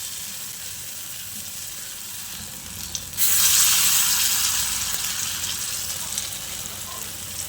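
Batter-coated spiny gourd frying in hot mustard oil in a kadai, with a steady sizzle. About three seconds in the sizzling jumps suddenly louder as another battered piece goes into the oil, then slowly dies down.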